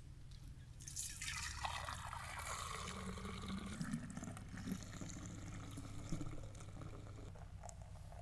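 Milk pouring from a metal milk can through a plastic funnel into a large glass jar: a steady splashing stream that starts about a second in.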